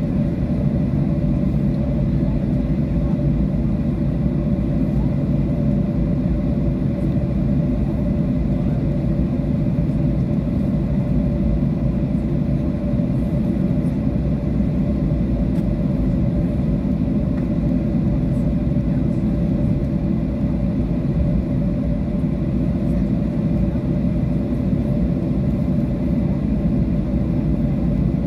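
Steady cabin drone of an airliner's jet engines at low thrust, with a constant low rumble as the aircraft taxis.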